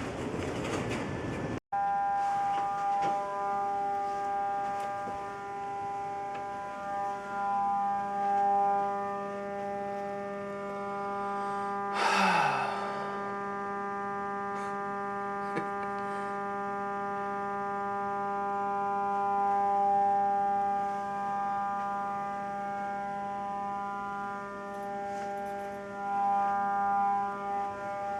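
Building fire alarm sounding a continuous steady tone of several notes together, a false alarm. About twelve seconds in, a short, loud noisy sweep cuts across it.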